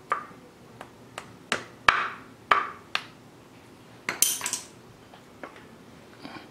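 Metal engine parts knocking and clinking as a Yamaha 1KT two-stroke cylinder is worked loose and lifted off its studs and piston. About eight sharp knocks with a brief ring, several close together around four seconds in, then only faint handling.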